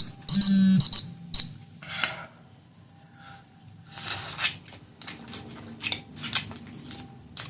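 A repeating electronic beeping tone stops about a second and a half in. It is followed by scattered wet clicks and cracks of hands peeling boiled seafood shells, with eating and smacking sounds.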